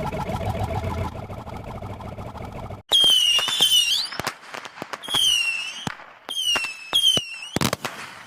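Fireworks sound effect: a dense crackling mix at first, then about three seconds in, four spells of high, wavering whistles, each with sharp cracks and bangs.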